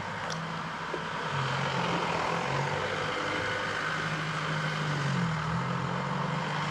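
A motor vehicle's engine running, a steady low drone that grows a little louder.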